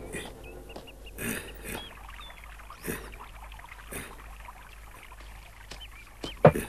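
Soft quiet background with a few light isolated taps and faint high twitters, then a quick series of sharp knocks on a wooden door near the end.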